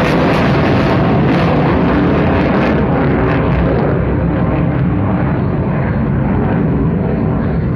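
F-16 fighter jet flying away: loud jet engine noise with a crackle in it, the hiss dulling from about three seconds in as the jet draws off.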